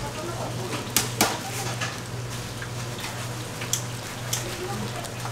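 Scattered light clicks and clinks of kitchenware, two close together about a second in and two more near the end, over a steady low hum.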